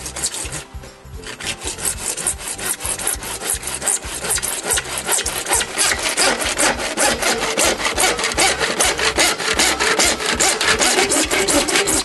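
Universal hand saw cutting through grey plastic pipe in quick, even back-and-forth strokes, with a short pause about half a second in. This is the pipe being cut to length for a drain repair.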